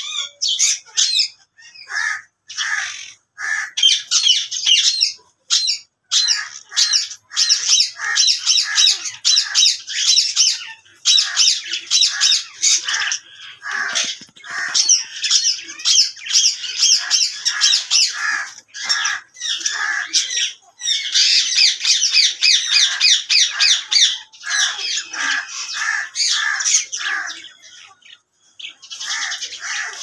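A pair of Alexandrine parakeets squawking and chattering in rapid, near-continuous runs of short, high calls, with brief pauses. The calls thin out and quieten near the end.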